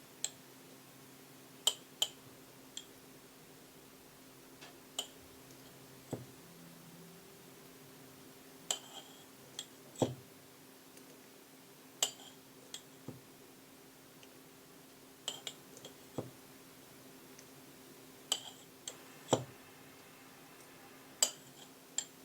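Scattered light clinks of glass and metal kitchenware being handled, about one a second at irregular intervals, each with a short ringing tail, over a faint steady hum.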